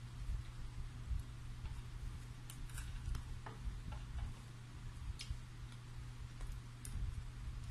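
Scattered soft clicks and smacks of someone eating roast chicken with her fingers, chewing and pulling the meat apart, over a steady low hum.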